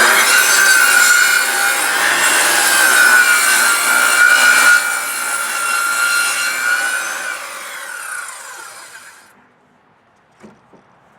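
Circular saw ripping a board along its rip guide. About seven seconds in the trigger is released and the blade's pitch falls as it spins down to a stop at about nine seconds, followed by a couple of faint knocks.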